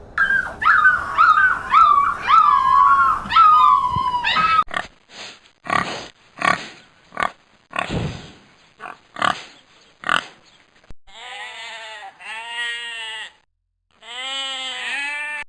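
A run of different animal calls: quick high chirping calls for the first few seconds, then a string of short separate grunts, then three drawn-out wavering cries near the end.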